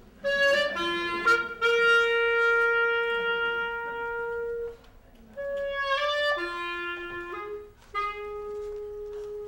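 A wind instrument plays two short phrases, each a few quick notes ending on a long held note, with a brief break between them a little before halfway.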